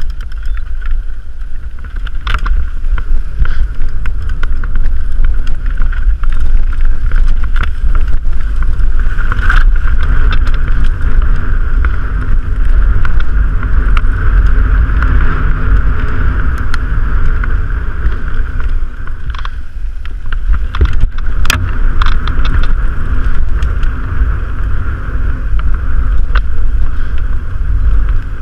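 Mountain bike riding down a bumpy dirt singletrack: wind buffeting the camera microphone, with frequent rattles and knocks from the bike and a steady high buzz that drops away briefly about two-thirds of the way through.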